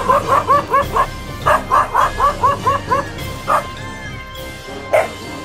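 A dog yelping rapidly, short sharp high yelps in quick runs of about four or five a second that break off and start again, with single yelps near the end. Music plays underneath.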